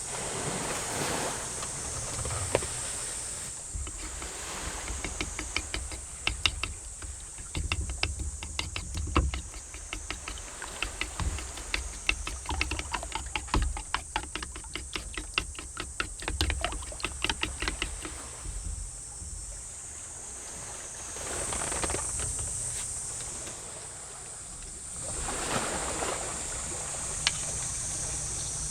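Sea waves washing ashore in slow swells, under a steady high hiss. In the middle a dense run of short clicks and taps, several a second, lasts more than ten seconds.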